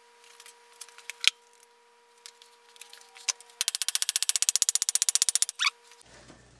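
A fast, even run of sharp mechanical clicks, about ten a second, lasting some two seconds, over a faint steady hum. A single click comes about a second in.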